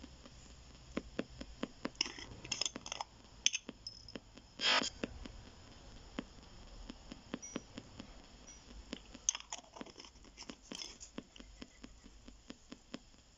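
PSB7 spirit box sweeping the AM band at a 250 ms rate: a steady run of clicks, about four a second, as it hops from station to station, with faint radio static between them. A few short bursts of hiss break in, the loudest one about five seconds in.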